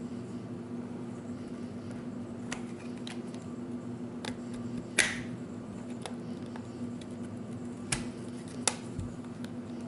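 Plastic clips of a Samsung Galaxy Note 2's frame clicking loose as a card is pried around its seams: a handful of sharp, separate clicks, the loudest about five seconds in. A steady low hum runs underneath.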